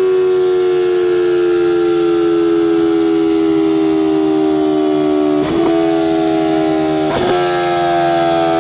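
BMW S 1000 R's inline-four engine running through a Pro-Race GP-R2R slip-on silencer, holding revs that slowly sink in pitch. Twice near the end the revs briefly pick up again.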